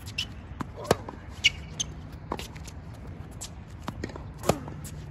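Tennis rally on a hard court: sharp knocks of racket strikes on the ball and ball bounces, the loudest about a second in, with a few short high squeaks of shoes on the court.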